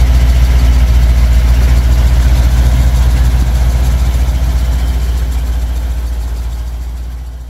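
Medium-duty box truck's engine idling steadily with a low, fast, even pulse, fading away over the last couple of seconds.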